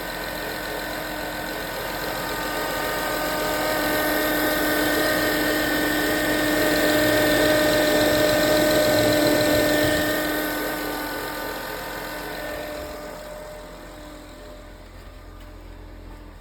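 2010 Honda Accord engine running with a high-ish pitched whirring from the alternator, a few steady tones at fixed pitch over the engine sound, growing louder and then fading. The owner ties the whine to the battery warning light coming on, which suggests a failing alternator although it tested good.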